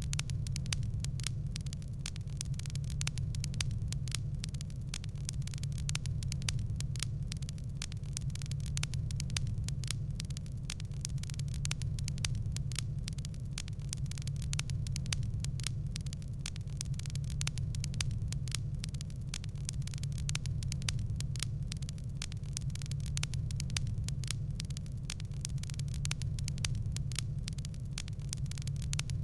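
Wood fire in a fireplace crackling: dense, irregular snaps and pops over a steady low rumble.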